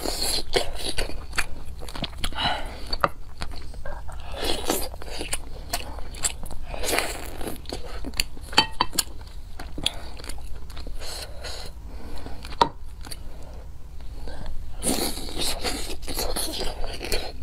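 Close-miked eating sounds: biting, gnawing and chewing meat off a braised pork rib, with wet clicks and smacks from the mouth coming irregularly throughout.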